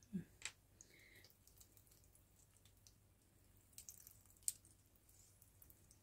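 Near silence with a few faint drips and clicks: a couple just after the start and a small cluster about four seconds in, the loudest near four and a half seconds.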